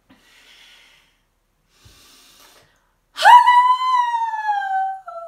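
Two faint breaths, then a woman's long high call, a drawn-out 'halloo', that jumps up in pitch and slides slowly down over about two seconds, ending in a short lower note.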